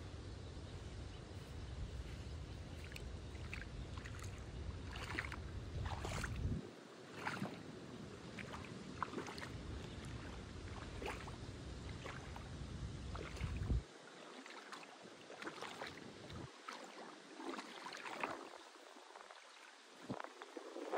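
Shallow seawater lapping and splashing in small, irregular splashes. Wind rumbles on the microphone until it drops away suddenly about two-thirds of the way through.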